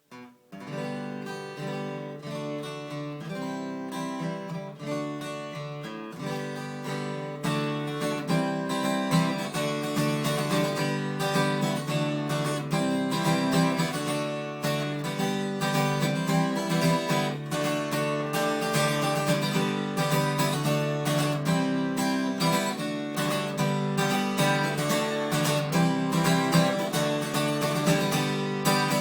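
1981 Yamaha FG340 Mark 1 acoustic steel-string guitar, strung with 11s, played in strummed chords. It starts softer and gets louder after about seven seconds.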